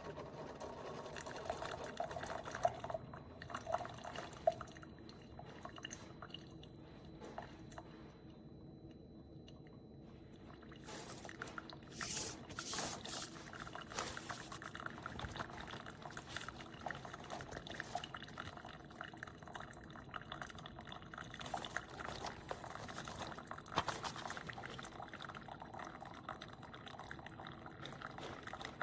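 Single-serve coffee maker brewing: liquid pouring and dribbling steadily, with many small crackles and sputters, busier from about a third of the way in.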